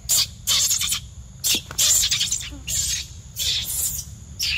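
Leaves and undergrowth rustling in short, irregular bursts, about six of them in four and a half seconds, over a low steady rumble.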